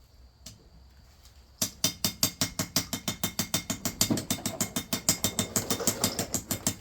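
A quick, even run of light hammer taps on a metal anvil, about seven a second, starting about a second and a half in.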